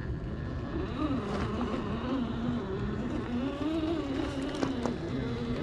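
Axial SCX10 III Jeep JLU RC crawler's electric motor and gear drivetrain whining as it crawls over rock, the pitch rising and falling with the throttle. A few sharp clicks come through, the loudest near the end.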